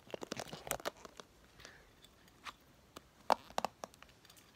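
Handling noise close to the phone's microphone: a scatter of crackly clicks and taps, densest in the first second, with the sharpest snap about three seconds in.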